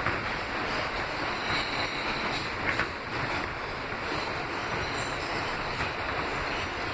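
Kawasaki R160B subway car running through a tunnel, heard from inside: a steady rushing roar of wheels on rail, with a few faint sharp clicks over the track.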